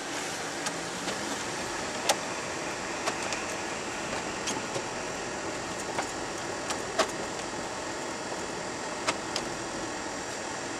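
Steady hiss of a heater fan blowing inside a truck's cab while the truck idles at a stop, with a few irregularly spaced light clicks.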